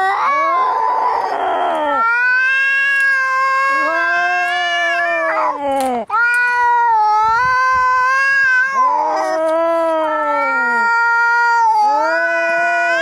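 Cats fighting: long, drawn-out yowls that rise and fall, two voices overlapping at different pitches, with a short hiss near the start.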